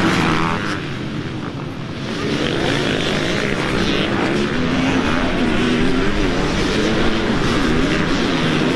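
Motocross bike engines racing, their pitch rising and falling as the riders work the throttle. The sound drops briefly about a second in, then comes back louder.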